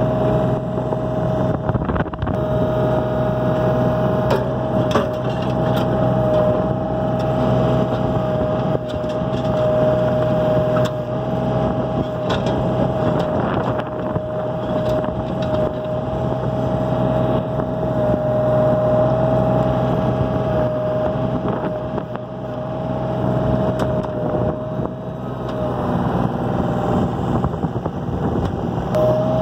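Mini excavator engine running under load with a steady high hydraulic whine, heard from the operator's seat, while an I-beam hung by a chain from the bucket is dragged over dirt. Scattered clinks and scrapes come from the chain and beam. The whine drops out for a few seconds near the end.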